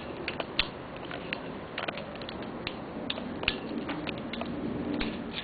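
Handling noise: irregular small clicks and rubbing as hands screw a coax connector onto an MFJ antenna analyzer, close to the microphone.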